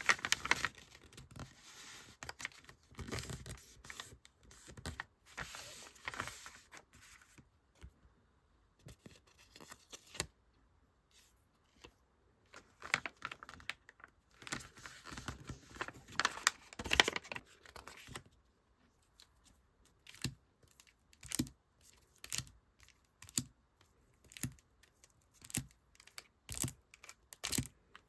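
Paper and plastic packaging handled by hand while packing sticker orders: irregular bursts of tearing and crinkling, giving way about halfway through to a run of light taps and clicks.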